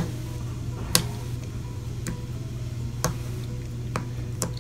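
Stiff blue butter-textured slime being poked and pressed with the fingers, giving sharp clicks about once a second.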